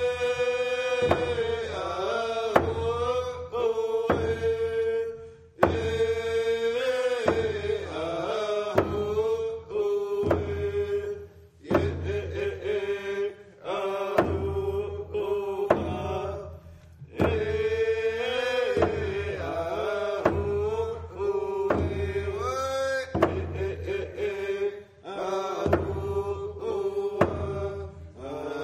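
A traditional Tseshaht paddle song, chanted by a group of voices in long held notes with short breaks between phrases.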